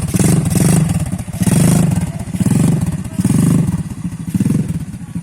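ATV engine running, its low pulsing sound swelling and fading every second or so as the throttle is worked.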